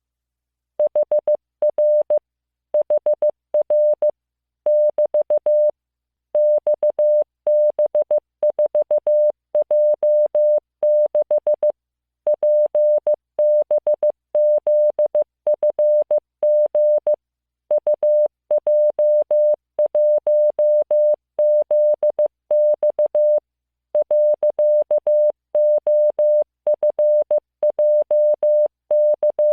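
Morse code practice tone: a single mid-pitched steady beep keyed on and off into short dots and longer dashes, starting about a second in, with brief pauses between characters, sending random code groups of letters and numbers.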